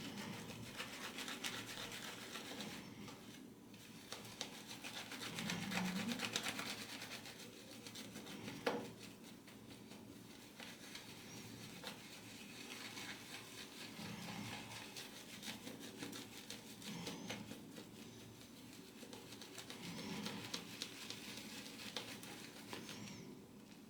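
Horse-hair shaving brush (Vie Long 13071, mane and tail hair) swirled in circles through hard shaving soap lather: a steady wet, crackly bristle rubbing that swells and fades in waves, with one sharp click about nine seconds in.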